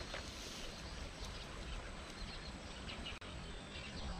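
Steady outdoor background hiss with faint, short high chirps of birds, and a single brief click about three seconds in.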